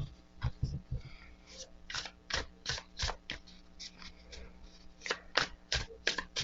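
A tarot deck being shuffled by hand, the cards slapping together in a steady rhythm of about two to three strokes a second.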